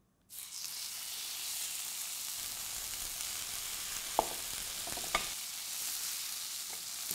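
Flat iron steaks sizzling in hot oil in a frying pan, a steady high hiss that cuts in suddenly as they go in. Two short clinks of the metal tongs against the pan about four and five seconds in.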